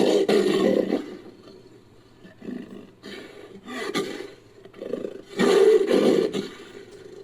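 Roaring calls of a made-up creature, built from leopard recordings: a loud roar at the start, quieter growling calls in the middle, and a second loud roar about five and a half seconds in.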